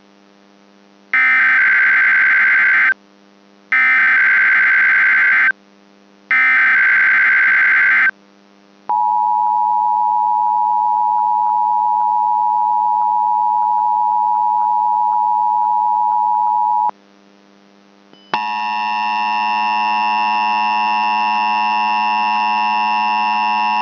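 Emergency Alert System SAME header tones: three warbling digital data bursts in a row, followed by the two-tone EAS attention signal held steadily for about eight seconds. About eighteen seconds in, a steady multi-tone buzz begins, with a faint low hum from the VHS audio effect underneath throughout.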